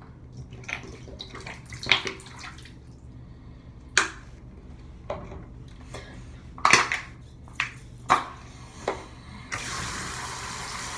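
A few sharp clicks and knocks of handling, then, about a second and a half before the end, a faucet is turned on and water runs steadily from it as the bottle is refilled with cold water.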